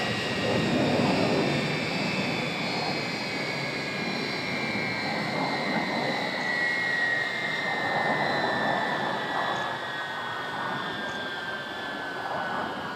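Turbofan jet engines of an Embraer KC-390 whining over a steady rush of air noise, the whine falling slowly and steadily in pitch as the engines wind down.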